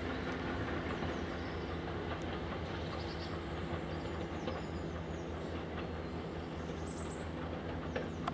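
Train running on the rails: a steady rumble with a few faint clicks, one sharper click near the end.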